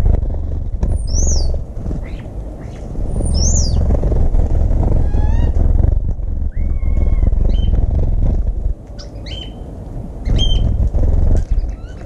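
Wind buffeting the microphone with a loud low rumble that rises and falls, over garden birds giving short high calls and chirps: two sharp calls in the first few seconds, a quick run of falling notes and a whistle mid-way, then chips near the end.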